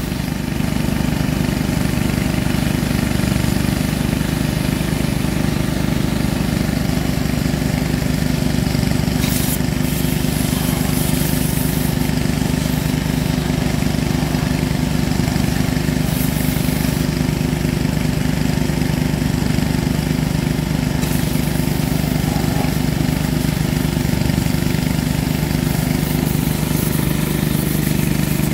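Small engine of a pressure washer running steadily with a fast even beat, with the hiss of its water jet spraying against a diesel engine block.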